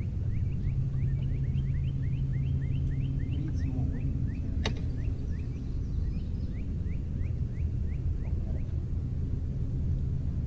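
A bird calls a long run of short rising chirps, about three a second, over a steady low hum, with one sharp click about halfway through.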